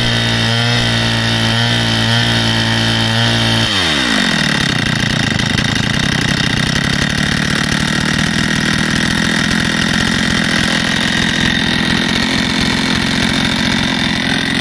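Stihl FS160 brushcutter's two-stroke engine held at high revs, then dropping back to idle about four seconds in and idling steadily; the machine is running again after its service.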